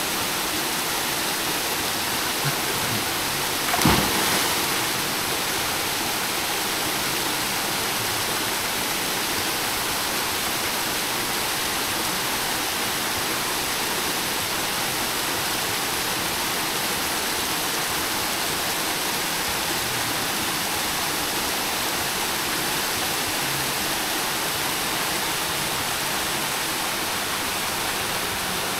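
Steady rush of small waterfalls cascading into a spring pool, with one loud splash about four seconds in as a person jumps into the water.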